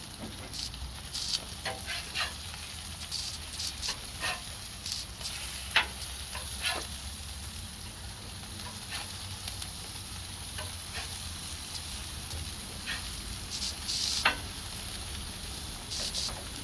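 Thick ground-beef burger patties sizzling as they fry, with a steady hiss and scattered pops and crackles of fat, a couple of them sharper.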